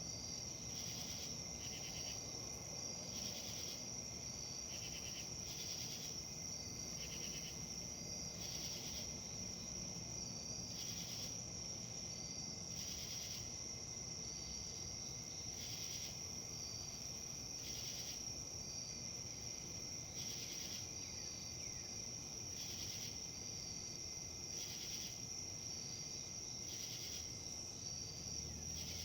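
Insects trilling steadily at a high pitch, with a pulsed chirping about once a second, over a soft low rustle of wind.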